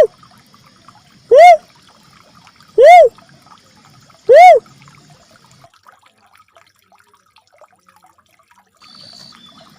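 Uncal merah cuckoo-dove lure call: single hollow notes that rise and fall in pitch, repeated about every second and a half, three times plus the tail of one at the start, then a pause of several seconds.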